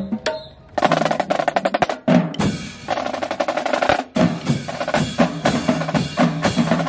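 Marching drumline of Pearl snare drums playing a fast street cadence of rapid strokes. It starts just under a second in after a single hit and breaks off briefly about two and four seconds in.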